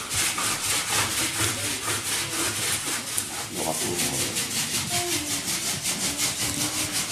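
Rapid, even back-and-forth scraping by hand, about five strokes a second, from hand-tool work on a stained-glass panel.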